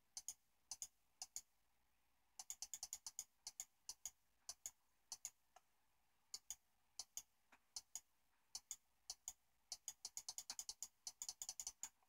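Computer mouse button clicked over and over, each click a quick press-and-release pair. The clicks come at an uneven pace, in quicker runs about two and a half seconds in and again near the end.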